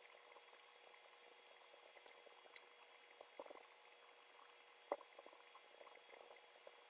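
Faint dabbing and squishing of a sponge loaded with wet acrylic paint against paper, in scattered soft ticks, with one slightly louder tap about five seconds in.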